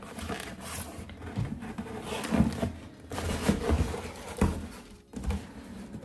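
Irregular rustling and handling of packaging and clothing during an unboxing, with a few soft knocks and a brief pause about five seconds in.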